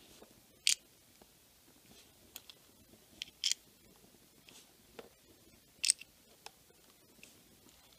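Several small, sharp clicks, irregularly spaced about a second apart, from an FX Streamline 11-round .22 rotary pellet magazine as pellets are pressed into its loading port and the magazine is worked around clockwise.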